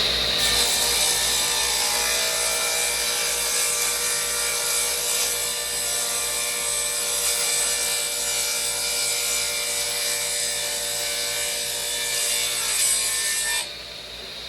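Electric power saw cutting through a wooden board: the motor's steady whine over the noise of the blade in the wood, cutting off sharply near the end.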